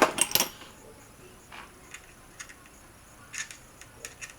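Small clicks and taps of a driver and plastic and metal parts while the steering brace screws of an RC truck are being undone: a quick cluster of sharp clicks at the start, then a few faint, scattered ticks.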